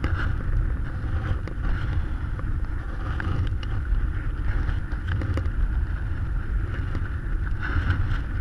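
Wind rushing over the camera microphone of a paraglider in flight: a steady low rumble with a few faint clicks.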